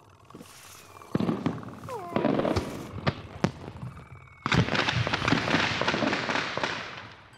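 Fireworks going off: scattered bangs and pops, then about four and a half seconds in a loud burst of crackling that slowly dies away.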